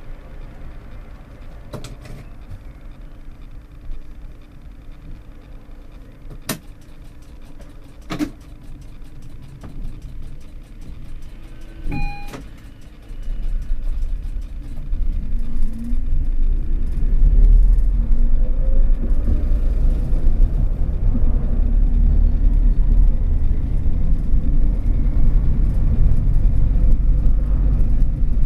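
Tram heard from the driver's cab, standing with a low hum and a few sharp clicks, then pulling away about halfway through. The traction motors' whine rises in pitch as it gathers speed, over a growing rumble of wheels on the rails.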